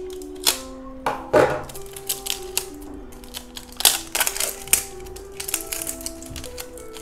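Plastic oil bottle being handled: irregular sharp crackles and clicks as the bottle is gripped and its cap twisted open, over background music.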